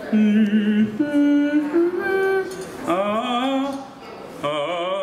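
A man's voice singing a tune in long, wavering held notes: four phrases with short breaks between them.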